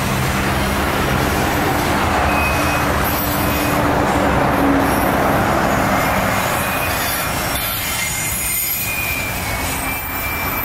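Freight train's steel wheels rolling on the rails as hopper wagons pass, a steady heavy rumble with thin high-pitched wheel squeals that come and go.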